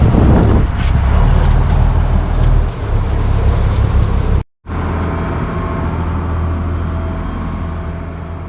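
An engine running steadily, with wind noise, in two clips joined by a brief cut about four and a half seconds in; the second clip fades down near the end.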